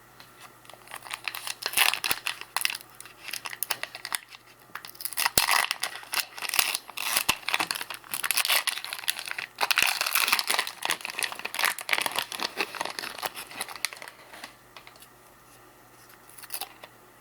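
Plastic trading-card pack wrapper being torn open and crinkled in the hands, with cards being shuffled, in dense crackly bursts for most of the stretch, quieter near the start and the end.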